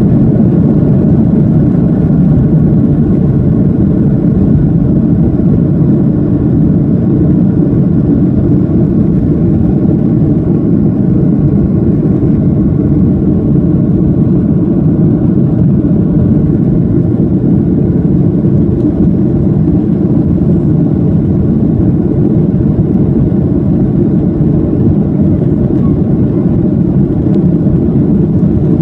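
Boeing 737-800's CFM56-7B turbofan engines at takeoff thrust, heard from inside the cabin: loud, steady engine noise through the end of the takeoff roll, liftoff and the climb-out.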